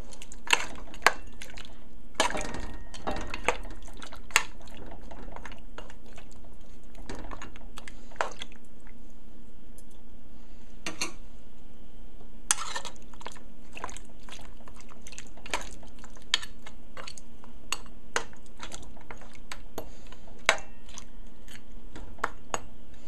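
Metal spoon clinking and scraping against a metal pot while pieces of mutton are stirred in water for blanching. Sharp, irregular clinks, thickest in the first few seconds, sparse around the middle, then picking up again, over a steady low hum.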